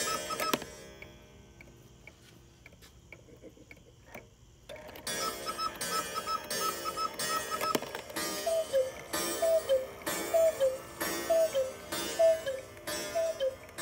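Antique Black Forest quail cuckoo clock sounding the hour. Its bellows-driven whistles pipe the quail's short, quick call, which stops about half a second in. The quail calls again after a few seconds of quiet ticking, and then the cuckoo gives its two-note falling call about once a second, six times in a row.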